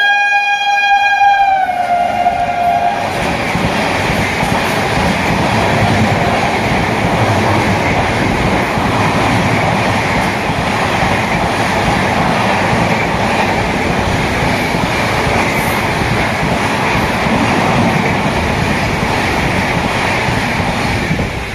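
Indian Railways express train sounding its horn as it comes past, the horn dropping in pitch as the locomotive passes about two seconds in and then ending. After that, the steady rumble and rush of the train running past at speed.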